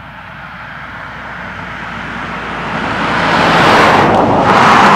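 A vehicle passing by: a rushing noise that swells steadily for about four seconds, is loudest near the end, then starts to fade.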